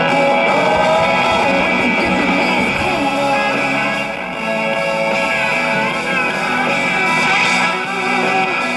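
Guitar music from an FM station playing through the speaker of an Admiral AM/FM tube table radio, its FM reception working again after a tube that had gone to air was replaced.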